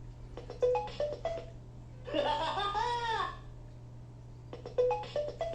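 Kinderbot toy robot's small speaker playing recorded sound effects: a quick run of electronic clicks and short blips, then a brief giggle, then the clicks and blips again near the end.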